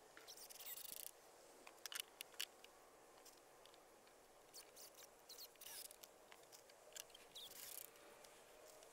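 Near silence: faint room tone with a few soft clicks and brief rustles.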